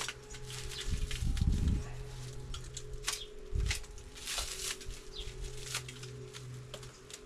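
Packaging being handled and unwrapped: irregular rustling and crinkling, with a few dull knocks about a second in and again a little after three seconds, over a faint steady hum.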